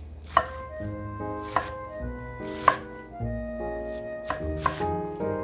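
Kitchen knife cutting through a bundle of enoki mushrooms and knocking on a wooden cutting board, about five separate cuts at uneven intervals, over background music.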